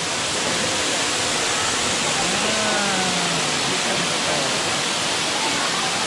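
Waterfall rushing steadily: an even, unbroken hiss of falling water at a constant level, with a faint voice briefly about two seconds in.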